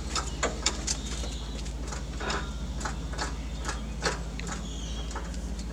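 Scattered metallic clicks and knocks from hand tools working under a hoisted engine, most likely spanners on the engine-mount bolts, over a steady low hum.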